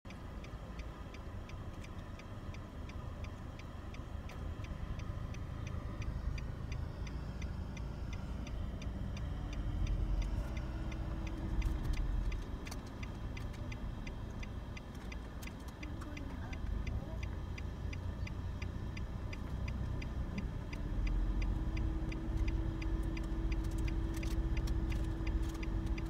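Car cabin sound of a car rolling in neutral: a low rumble that grows louder about ten seconds in and again near the end, when a steady hum comes in, with a regular ticking throughout.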